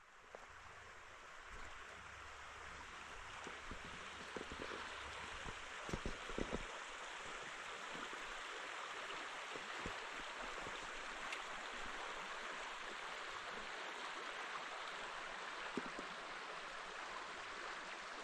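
A small creek running steadily, a faint even rush of water. A few soft low thumps come about four to seven seconds in and once more near the end.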